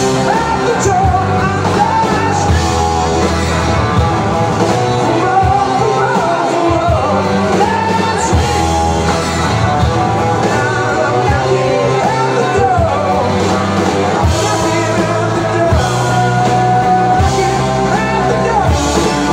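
Live rock band playing loudly: drums and band with a sung vocal line over them.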